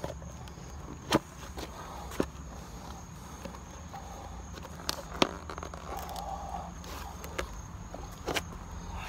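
Scattered sharp knocks and scuffs of a worn Timberland leather boat shoe, its rubber sole breaking apart, against a concrete step, the loudest about five seconds in. A steady low rumble of background noise runs underneath.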